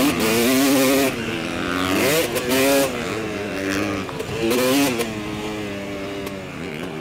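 Motocross dirt bike engine revving up and backing off as the throttle is worked on the track. It surges in pitch three times, about a second in, halfway and near five seconds, then runs lower and steadier near the end.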